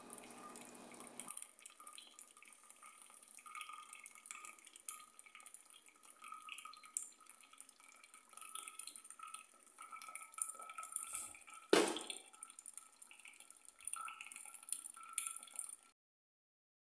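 Coffee dripping through a paper filter in a plastic pour-over holder into the pot below, faint and irregular, after the last trickle of hot water is poured in at the start. A single sharp knock about twelve seconds in.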